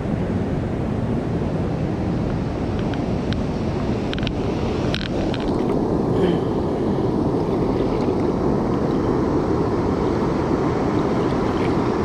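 Steady rush of fast-flowing river water churning along a concrete wall, mixed with wind buffeting the microphone. A few light clicks sound around four to five seconds in, and the water noise grows a little louder after that.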